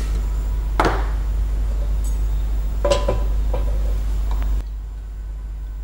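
A few sharp clinks and knocks of metal cookware as a frying pan is handled on a gas stove, over a steady low hum. About four and a half seconds in, the sound cuts to a quieter hum.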